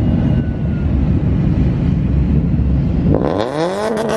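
A low, steady rumble of car engines, then about three seconds in a car engine revs up, its pitch rising quickly and then holding high.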